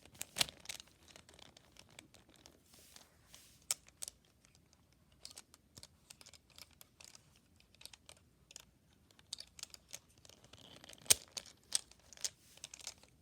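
Plastic pieces of a disassembled 3x3 Rubik's Cube being handled and fitted back together by hand: scattered small plastic clicks at an irregular pace, with a few louder clicks near the end.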